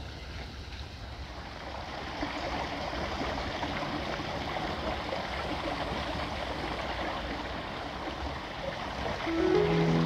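Water of a small garden stream running and splashing over mossy rocks and a little rock-ledge waterfall, a steady rushing that grows louder about two seconds in. Music notes begin near the end.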